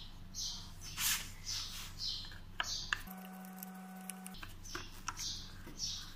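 Faint clicks and scrapes of a Phillips screwdriver turning out a screw from a scooter's plastic front mudguard, over a steady low hum and a faint high chirp repeating about twice a second. The background cuts out for about a second in the middle, replaced by a steady tone.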